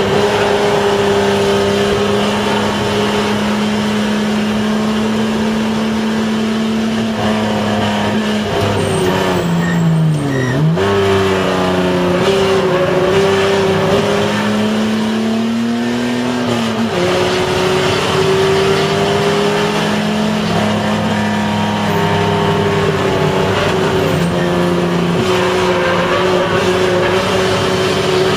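Race car engine heard from inside the cabin, running at high revs on track. The revs dip sharply about ten seconds in, climb steadily again, then drop suddenly about seventeen seconds in and hold steady.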